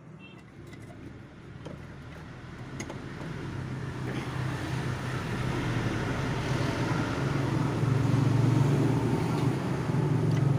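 A motor vehicle's engine hum and road noise growing steadily louder over several seconds, as of a vehicle approaching.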